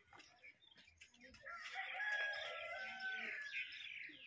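A rooster crows once, a single long call of about two and a half seconds starting about a second and a half in, with small birds chirping around it.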